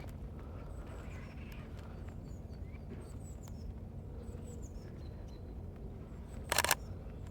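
Small birds chirping with short, high, falling notes over a low steady rumble. About six and a half seconds in comes a quick burst of camera shutter clicks from a Sony A6400.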